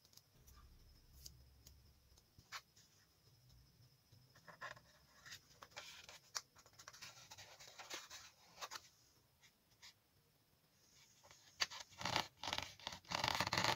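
Fingers rubbing and pressing stickers down onto foam board: scratchy rubs and small clicks, with the loudest rubbing near the end.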